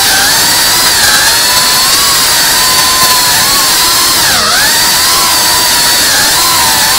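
FPV racing quadcopter's brushless motors and propellers whining loudly, heard from the drone itself. The pitch wavers with the throttle, dips sharply and climbs straight back about four and a half seconds in.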